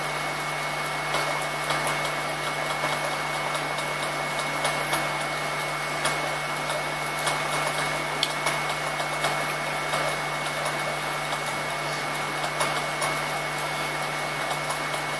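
Steady background hum and hiss of room noise, with a thin steady high-pitched whine and a few faint light clicks.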